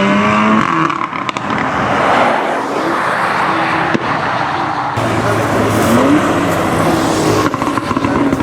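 Tuned VW Golf R 7.5's turbocharged four-cylinder with a decat Milltek exhaust, loud: its note rises under hard acceleration, then gives way to a rushing pass-by sound, with a few sharp crackles about a second in. About five seconds in the sound changes abruptly to a lower, steadier engine note.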